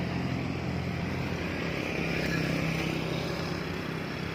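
Road traffic going by: the small engines of two motorcycles running as they pass round a bend, a steady hum that eases off slightly near the end as a car approaches.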